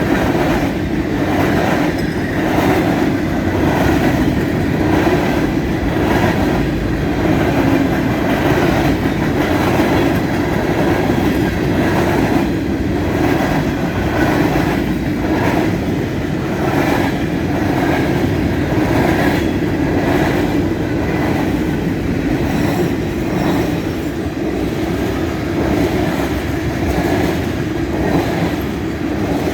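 Freight train cars rolling past, a steady rumble with a rhythmic clickety-clack of wheels over rail joints about once a second.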